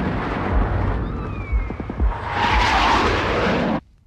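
Film battle sound effects of explosions: loud, rumbling blasts with a few sharp thuds about two seconds in, cutting off abruptly near the end.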